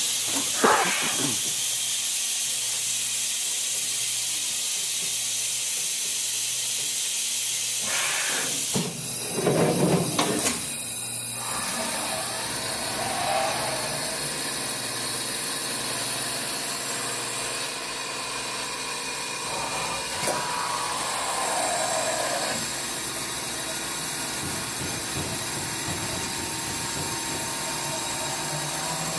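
Fadal VMC40 CNC vertical mill running: a steady loud hiss, a few knocks about eight to ten seconds in, then a lower, steady mechanical running noise.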